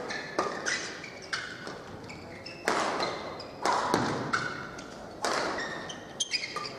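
Badminton rackets striking a shuttlecock, about eight sharp, irregularly spaced cracks that echo around a large hall, with short high squeaks of shoes on the court mat between them.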